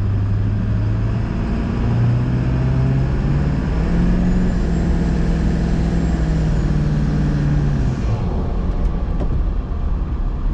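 Ford 7.3 L Power Stroke V8 turbo-diesel pulling hard under acceleration: the engine note climbs in steps and a turbo whistle rises from about four seconds in. About eight seconds in, the engine note and whistle drop off suddenly, which the driver puts down to wheelspin and the engine computer cutting fuel on an overboost warning.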